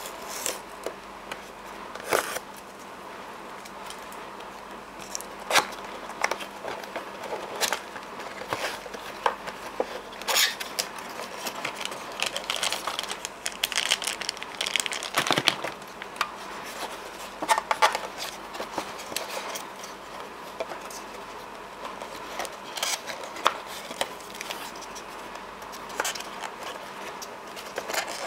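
Cardboard box and plastic packaging being handled: rustling and crinkling with many scattered clicks and taps, and a denser stretch of crinkling near the middle.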